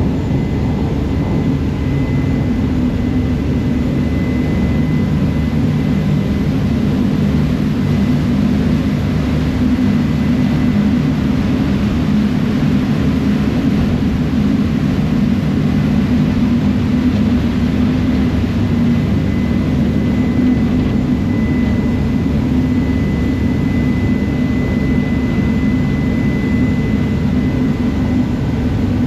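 Ferry's engines running steadily underway, a low drone with a steady rushing noise over it.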